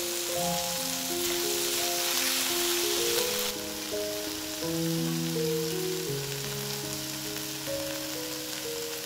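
Prawns sizzling as they fry in oil in a wok, a steady hiss that drops off suddenly about three and a half seconds in, over soft background music of slow held notes.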